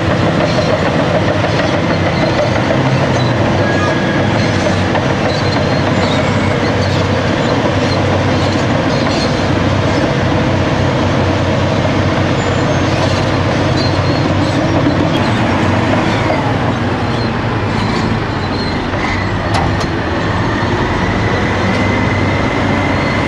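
Heavy diesel engines of a Cat 631E wheel tractor-scraper and a Cat D10R crawler dozer running hard under load, with clanking and rattling of steel tracks and metalwork. A thin high squeal sets in near the end.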